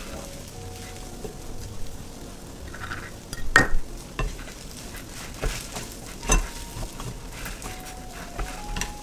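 Garlic fried rice ingredients sizzling in a frying pan as they are stirred. A utensil scrapes and knocks against the pan, sharply twice, about a third and two-thirds of the way through.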